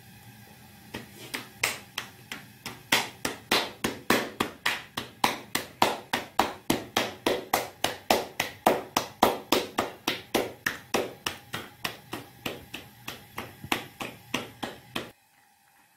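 Rapid, evenly spaced sharp taps, about three to four a second, which stop abruptly near the end.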